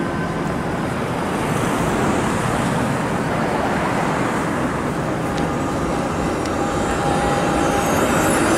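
City street traffic with a CLRV streetcar approaching and passing close by, its running noise growing gradually louder toward the end.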